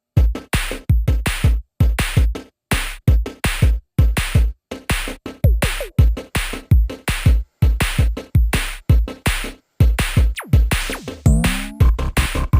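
Electronic background music with a heavy drum-machine beat that stops and starts in short breaks, then a rising sweep near the end leads into a steady beat.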